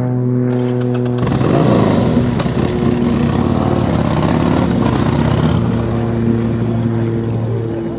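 Motorcycle engine idling, then opened up hard about a second in as the bike pulls away, running loud and rough at high revs; after about five and a half seconds the throttle eases and the engine settles to a steadier, lower note.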